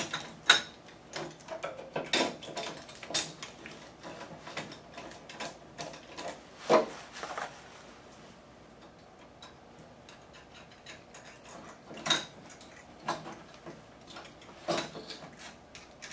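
Irregular metal clicks and light knocks as a thermal copier's reflector and bulb assembly is handled and seated back into the frame rails by hand, with a quieter lull about halfway through.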